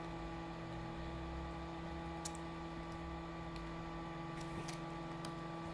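Steady low electrical hum with a few faint, sharp clicks from small plastic phone parts being pried up and handled.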